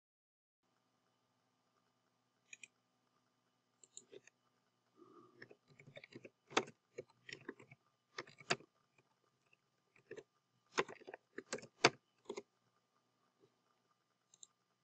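Faint, irregular keystrokes and clicks from a computer keyboard and mouse as a file name is typed.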